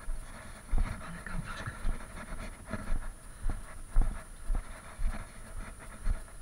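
Footsteps crunching on gravel at a walking pace, an uneven thud every half second or so, with a person's heavy breathing.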